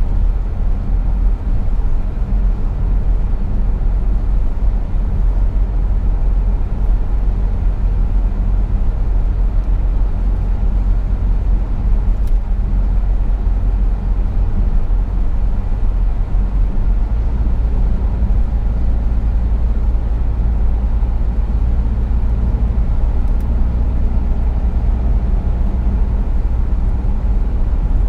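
Steady low rumble of a car's engine and tyre noise heard inside the cabin while driving at speed. The low rumble changes slightly about seventeen seconds in.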